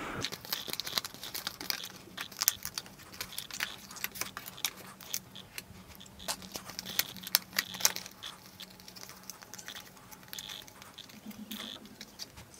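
Thick cardboard game parts being punched out of a die-cut punchboard sheet and handled: many irregular sharp snaps and clicks with rustling of card.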